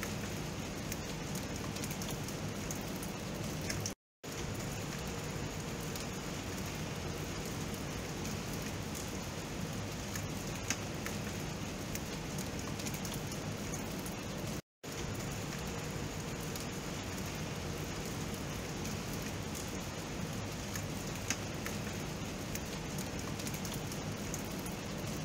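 Steady rain falling, with scattered sharper drop ticks through it. The sound cuts out completely for an instant twice.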